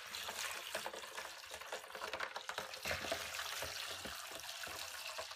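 Water pouring in a steady stream into a small plastic toy bathtub, splashing onto plastic toy figures and foamy water, with many small crackles.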